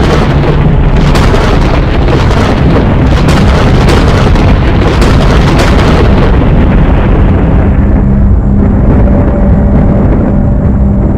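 A loud rumbling, crackling sound effect, like a burst of fire, swells in at the start and fades over the second half, leaving a low rumble under steady low droning notes.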